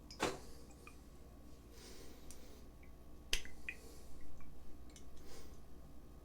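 A few sharp clicks and small ticks from a cologne bottle and its cap being handled, with some faint short hisses between them.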